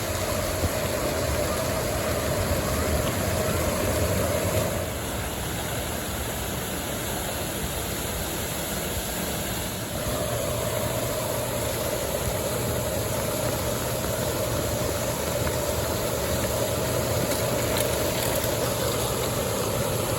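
Steady rushing of a fountain show's water jets over a low pump hum. It eases about five seconds in and picks up again about ten seconds in.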